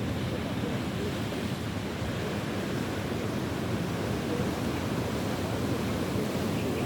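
Ocean surf washing steadily, a continuous rush of waves with no single break standing out.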